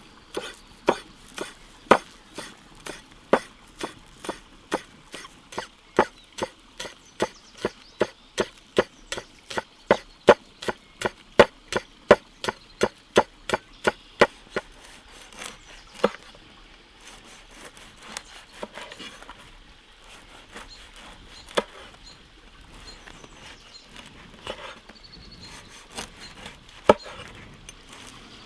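Repeated sharp wooden knocks in a steady chopping rhythm, about two a second, stopping about halfway through; after that only a few scattered knocks.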